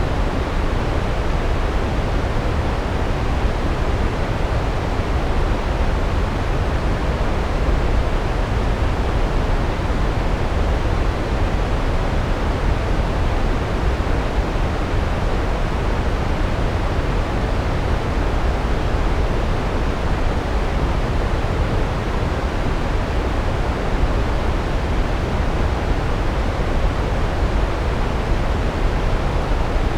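Large waterfall: water falling onto rock in a steady, deep rush that does not change.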